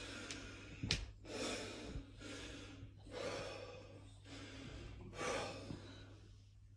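A man breathing hard in noisy, forceful breaths, four of them about a second apart, as he strains to hold flexed bodybuilding poses. A sharp click about a second in.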